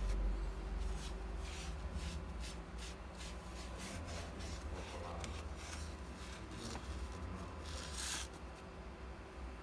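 Cloth applicator rubbing plastic restorer into a car's dried-out interior plastic trim: quick back-and-forth wiping strokes, about two or three a second, with one longer, louder stroke near the end.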